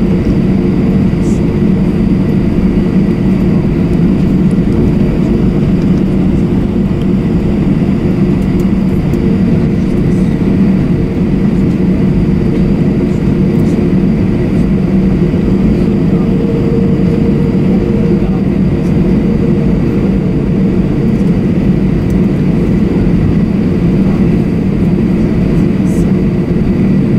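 Cabin noise inside an Airbus A321: the steady drone of its IAE V2500 jet engines over a low rumble, with a few constant whining tones and no change in power.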